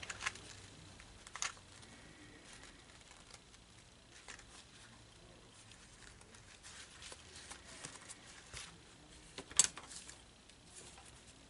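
Faint rustling of ribbon and small clicks as a metal barrette is worked into the centre of a ribbon hair bow, with one sharper click near the end.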